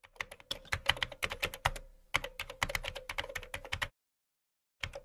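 Keyboard-typing sound effect: a rapid run of sharp clicks over a faint steady hum, breaking off briefly about two seconds in, then stopping dead for about a second before starting again just before the end.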